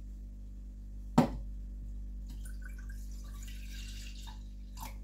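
Milk poured from a carton into a stainless steel saucepan, a splashing stream from about two seconds in until near the end. A single sharp knock about a second in is the loudest sound.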